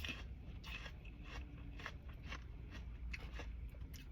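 Close-up chewing of crunchy food, with irregular crisp crunches and wet mouth sounds, over a steady low rumble.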